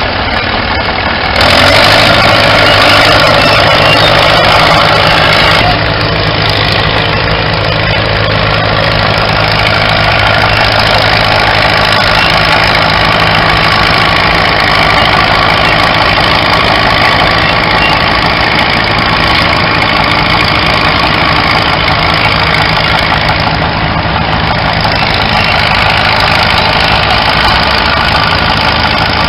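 Vintage tractor engines running with a steady low throb. The sound gets louder about a second and a half in and drops back a few seconds later.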